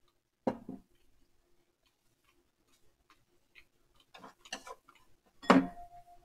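Tableware knocking and clicking on a table. A sharp knock comes about half a second in as a glass sauce bottle is set down. A few lighter clicks follow, then a louder knock near the end as utensils are handled.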